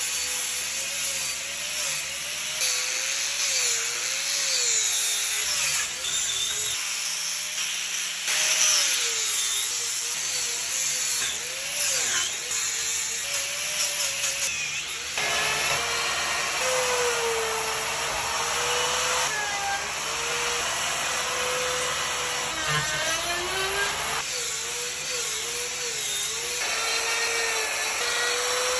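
Electric die grinder with a carving burr running against cedar wood, its motor whine wavering in pitch as the bit is pressed in and eased off. The sound changes abruptly a few times where clips are joined.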